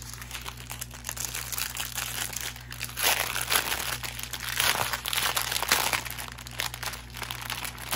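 Clear plastic bag of diamond painting drills and tools crinkling as it is handled, getting louder about three seconds in.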